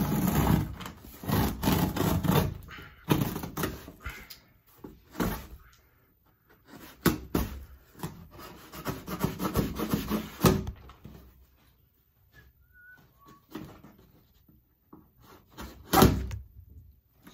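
A knife slitting packing tape and scraping along a cardboard shipping box, in several bouts of rough scraping and rustling, followed by quieter handling of the box. One sharp, loud thump near the end.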